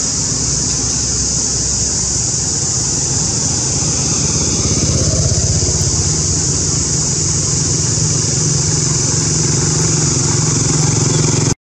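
Motorcycle engine running steadily, a low continuous hum, under a loud steady high-pitched hiss; both cut off suddenly at the end.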